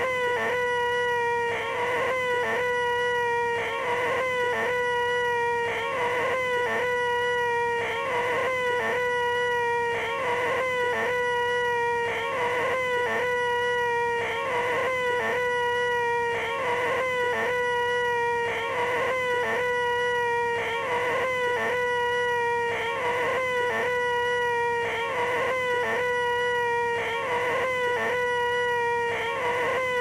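A man's loud, nasal, high-pitched 'eeeeh' held on one note, looped over and over with a brief break every second or so: the 'most annoying sound in the world' vocal noise.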